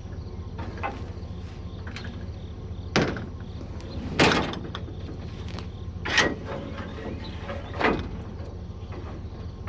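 Steady low machine hum, likely the combine running, broken by four sharp clunks spaced about one to two seconds apart.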